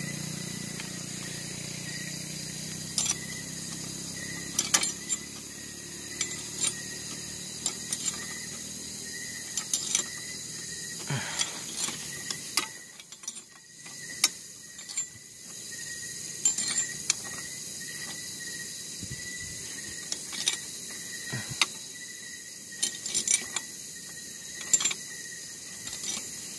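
Metal wrench working on the spark plug of a Rusi 110 motorcycle engine: short, sharp metallic clicks every second or so as the wrench is turned and refitted. The plug is being refitted or removed after being cleaned, because the engine would not start.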